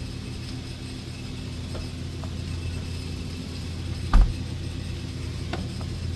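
Small metal clicks and taps from work on a refrigerator door hinge, with one loud knock about four seconds in, over a steady low hum.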